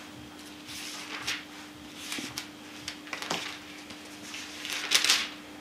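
Bible pages rustling as they are turned and leafed through: several short swishes, the loudest near the end, over a faint steady hum.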